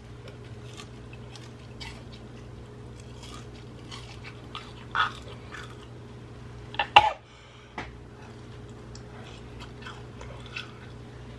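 A person chewing a mouthful of air-fried shark meat and skin: soft wet mouth smacks and clicks over a steady low hum, with a sharper, louder mouth noise about seven seconds in.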